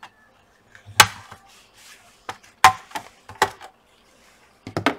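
Plastic bottom cover of an Acer TravelMate P215 laptop being pried off, its retaining clips letting go in a series of sharp snaps and clicks, the loudest about a second in and a quick pair near the end.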